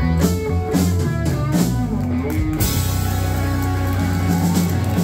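Live rock band (electric guitars, bass and drum kit) playing a run of rhythmic hits, then landing on a held closing chord with ringing cymbals about two and a half seconds in.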